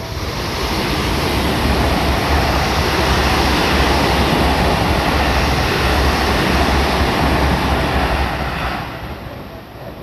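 A Seibu Ikebukuro Line electric commuter train passing close by the level crossing: a loud rushing rumble of wheels on rail. It builds over the first second and falls away near the end as the last car clears, when the crossing bell's ringing shows through again.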